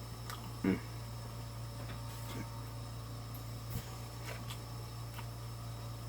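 Quiet eating sounds close to the microphone: scattered soft mouth clicks and smacks, with one brief voiced sound about a second in, over a steady low hum.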